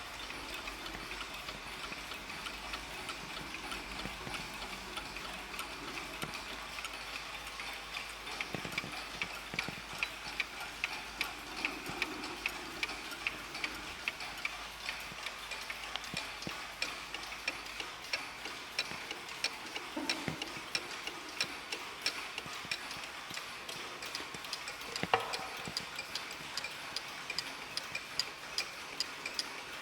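Several mantel clocks ticking at once, their ticks overlapping out of step with each other, with one louder click late on.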